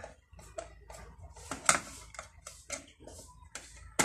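Screwdriver turning a screw out of the metal frame of a DNP DS-RX1 dye-sublimation photo printer to free a cover: a run of small, irregular clicks and scrapes, with a sharper click near the end.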